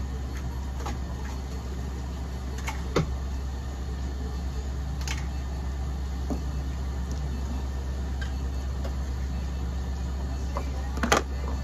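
Steady low hum of running equipment, like a fan or motor, with a few short clicks and knocks; the loudest knock comes near the end.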